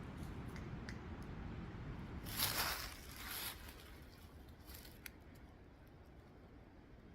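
Two short rustling crunches, about two and a half and three and a half seconds in, then a fainter one near five seconds and a few light ticks. Under them runs a low rumble that dies away after about three seconds.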